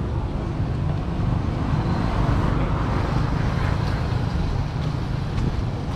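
Steady street traffic noise from passing motor vehicles, with a continuous low rumble.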